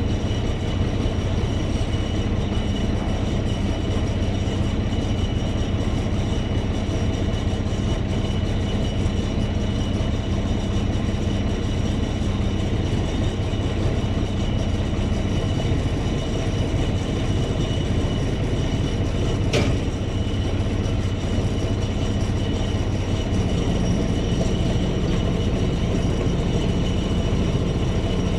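A heavy vehicle's engine running steadily under a constant high whine. The engine note changes about halfway through and again near the end, and there is a single sharp click about two-thirds in.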